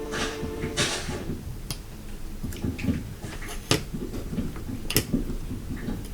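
A series of light clicks, taps and handling noises, a few of them sharper than the rest. Sustained music tones end about a second in.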